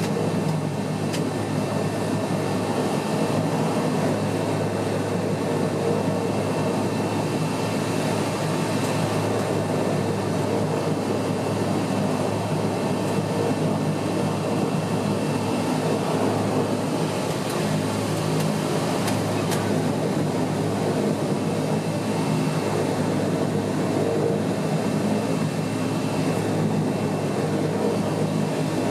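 Bombardier Dash 8-100 turboprop engine and propeller running at low power while the aircraft taxis after landing, heard inside the cabin beside the engine: a steady drone with a low hum and a faint high whine.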